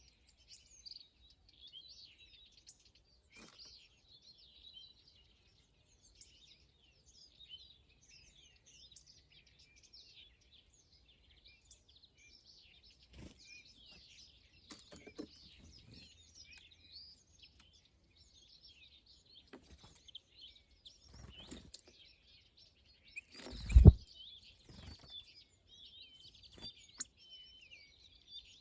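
Small birds chirping and twittering continuously, several at once. A few soft knocks, and one loud thump late on.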